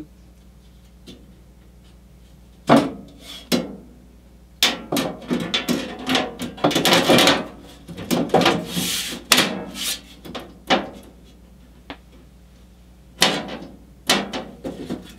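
Front panel of a Caselabs Magnum SMH10 computer case being worked onto the chassis by hand. A couple of knocks come first, then several seconds of rattling and scraping as it is pushed and shifted into place, then two more knocks as it is pressed home. One of the panel's spring retaining clips is not catching.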